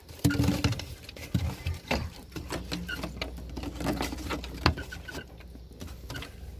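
Handling noise: irregular clicks, knocks and rustling, with one sharper knock about two-thirds of the way through, over a low steady hum.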